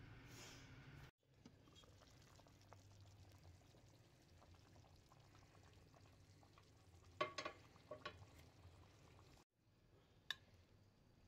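Faint bubbling and crackle of large rice-and-meat balls (koofteh) simmering in tomato sauce in a steel pot, over a low steady hum. A few sharp clicks come about seven to eight seconds in, and there is one more click near the end.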